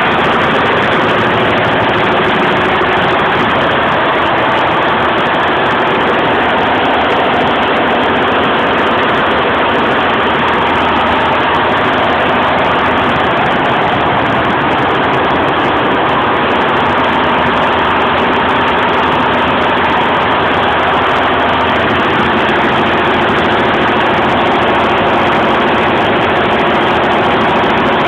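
Golden Lion embroidery machine running steadily at 850 RPM, an even, continuous mechanical stitching noise.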